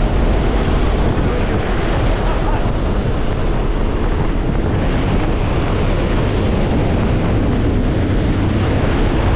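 Loud, steady rush of air through the open door of a jump plane in flight, over the drone of its engines.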